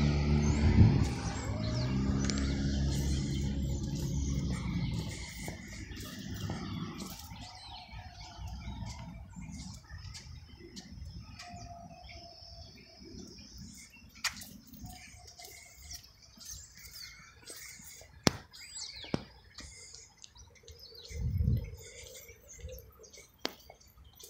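A loud, low engine drone with a steady pitch fades away over the first several seconds. It leaves quiet outdoor air with faint bird chirps and a few sharp clicks.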